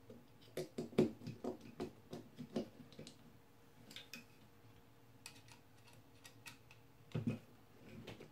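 A run of light clicks and ticks as a precision screwdriver with a magnetic bit tightens the screws on a metal circuit-board holder, thinning out to scattered ticks, with a duller knock about seven seconds in.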